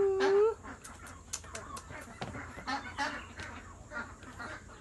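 Poultry clucking and calling off-screen, short scattered calls throughout. Right at the start there is one loud drawn-out call lasting under a second that rises at its end.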